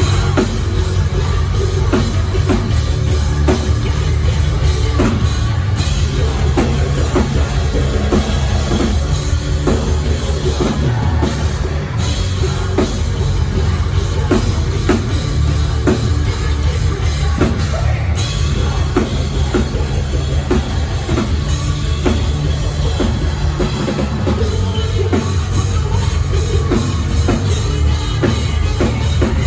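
Rock band playing live at full volume, driven by a pounding drum kit with steady bass drum over a heavy low end.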